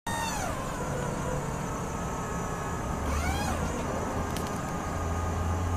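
A vehicle engine running steadily as a low hum that grows stronger about three seconds in. Two short whistle-like glides sound over it: one falls right at the start, and one rises then falls about three seconds in.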